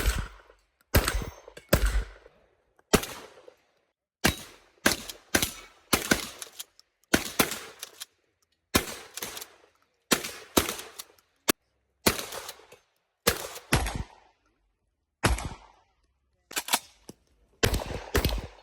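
Shotgun firing a rapid string of about thirty shots, in quick pairs and short runs broken by brief pauses, each shot with a short echoing tail.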